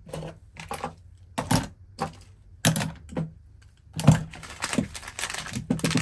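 Metal padlocks and brass lock cylinders being set down one at a time into a cardboard box, giving a series of separate clunks and clicks. The clatter grows busier and more continuous in the last two seconds as more items are handled.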